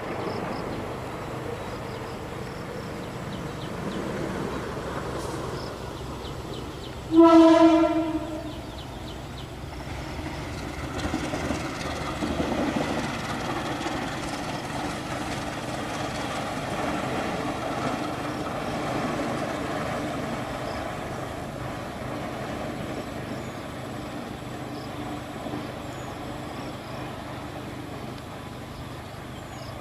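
Train horn giving one loud single-note blast of about a second, then a train running past with a steady rumble and clatter of wheels on the rails.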